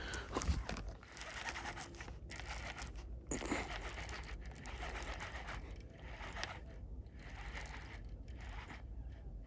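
Irregular scraping and rustling close to the microphone, with short pauses: handling noise while a spotted bass is fought and landed from the bank.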